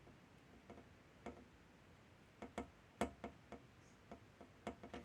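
A string of light, irregular clicks and taps, about a dozen, the loudest about three seconds in, from small hand tools handled during soldering work on the console board.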